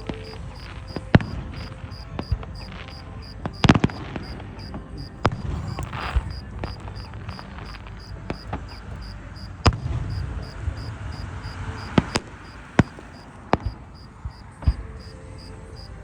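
Fireworks exploding: irregular sharp bangs a second or several seconds apart over a low rumble, with crickets chirping in a steady, even pulse.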